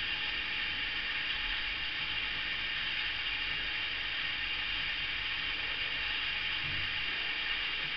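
Steady high hiss with no distinct events: the recording's own background noise.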